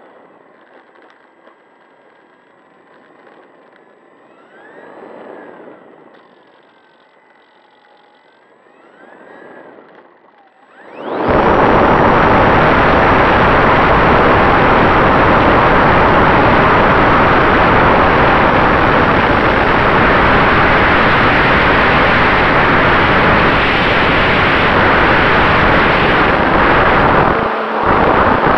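Radio-controlled model airplane's motor and propeller, heard from on board: a soft whine that rises and falls in pitch as the plane taxis. About eleven seconds in, the throttle opens for takeoff and a loud, steady rush of propeller and wind noise takes over, dipping briefly just before the end.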